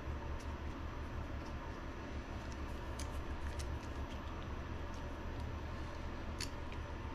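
A few light, scattered clicks of small plastic RC shock parts being handled and fitted together by hand, over a steady low hum.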